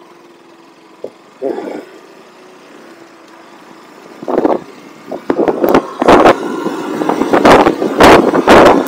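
A motorcycle running at low speed with a faint steady hum, then wind buffeting the rider's camera microphone in loud gusts that come stronger and more often from about halfway on as the bike picks up speed on a gravel road.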